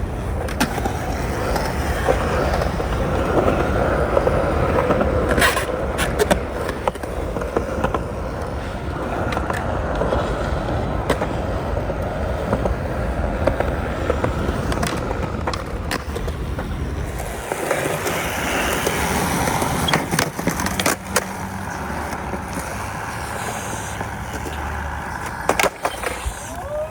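Skateboard wheels rolling over pavement in a steady rumble, with a few sharp clacks of the board.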